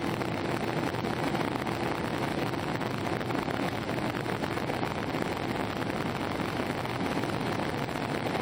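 Steady roar of an easyJet Airbus airliner's jet engines and airflow heard from inside the cabin, with a faint hum that fades about a second in.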